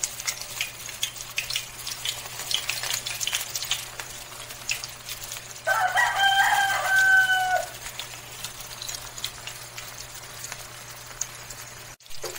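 Oil crackling and sizzling around a breaded chicken cutlet deep-frying in a wok. About six seconds in, a rooster crows once for about two seconds, the loudest sound.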